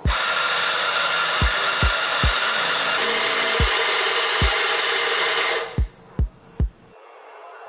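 Electric espresso grinder running, grinding a fine single dose of coffee into a portafilter. It starts abruptly and cuts off about five and a half seconds in. Music with a thumping beat plays under it.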